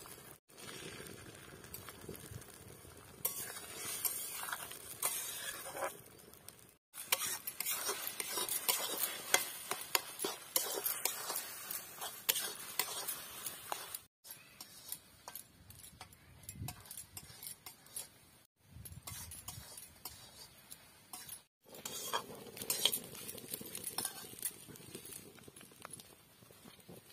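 A metal spatula scrapes and stirs egg in a metal kadai while the egg sizzles in the hot oil. The sound comes in short stretches that cut off abruptly several times.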